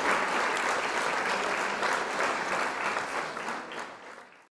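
Applause from many people clapping, fading away over the last second and a half and then cutting to silence.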